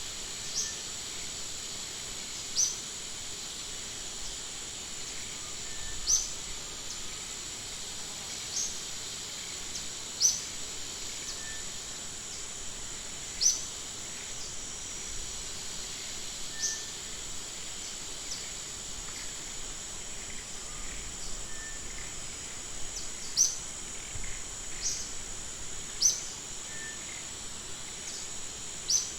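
Outdoor nature ambience: a steady high insect drone, with a short high chirp that repeats every two to three seconds.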